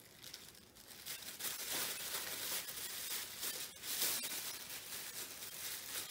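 A clear plastic bag crinkling and rustling as it is pulled open by hand, getting louder about a second in.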